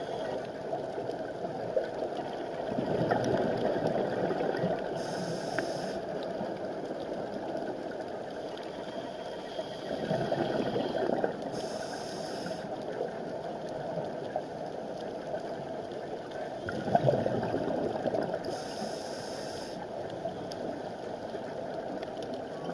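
Scuba diver breathing through a regulator underwater: three gurgling rushes of exhaled bubbles about seven seconds apart, each followed by a short hiss of inhaling, over a steady low hum.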